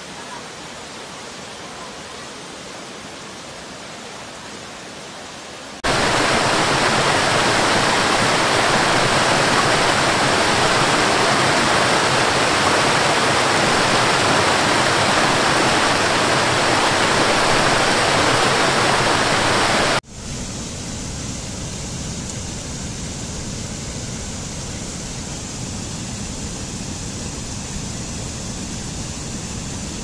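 Steady rush of falling water from a waterfall. It jumps suddenly much louder about six seconds in, then drops abruptly to a middling level at about twenty seconds.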